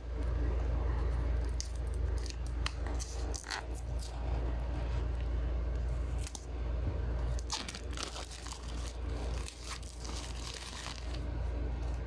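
Clear plastic shrink wrap crinkling and tearing as it is peeled and cut off a small cardboard box, in irregular crackles and snips, over a steady low rumble.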